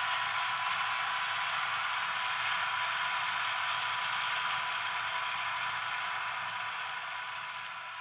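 Massey Ferguson 9895 combine harvester running steadily while threshing wheat: an even machine noise with a steady whine, fading out near the end.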